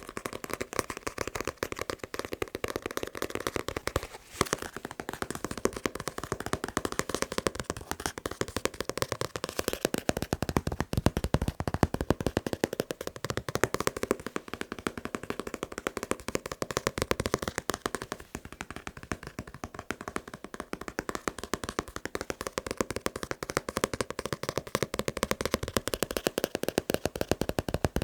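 Fast tapping on a manga book: rapid, continuous taps, many per second, with a brief dip a few seconds in.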